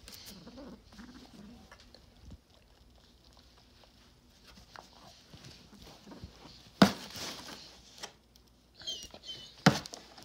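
A coonhound and a calico cat play-wrestling on a couch cushion: soft scuffling and pawing, with two sharp knocks, one about two-thirds of the way through and one near the end. A few short high squeaks come just before the last knock.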